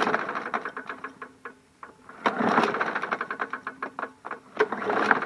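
MTD Yard Machines push mower engine cranked by its recoil starter three times without firing, each pull a quick run of clicks and rattles. The owner hears something rattling inside and takes the engine for shot, although it seemed to have compression.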